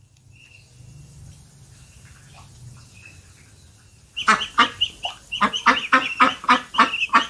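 Ducks quacking: a loud, rapid series of short calls begins about four seconds in, several a second, after a few faint high chirps.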